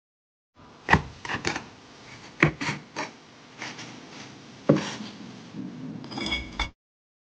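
Objects being handled: a series of sharp knocks and clatters with scraping between them, ending in a brief ringing clink.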